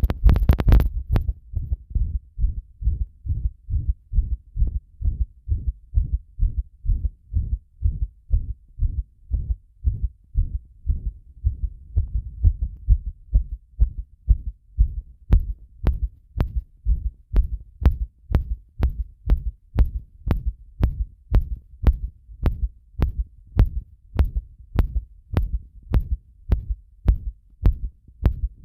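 Human heartbeat picked up through a microphone pressed against the chest: a fast, steady rhythm of low thumps. A loud scraping rub of contact noise in the first second, and from about halfway on a sharp click with each beat.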